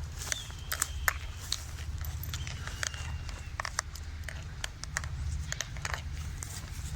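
Irregular light clicks and rattles from a dog-training e-collar remote jostling on its owner while he walks, over a steady low rumble of movement. Twice, a faint thin high whistle is heard, lasting about a second each time, from a bird calling.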